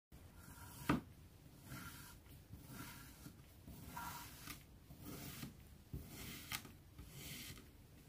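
Wavy crinkle-cut blade pressing down through kinetic sand over and over, a soft crunchy scrape with each cut about once a second, and a sharp click about a second in as the loudest moment.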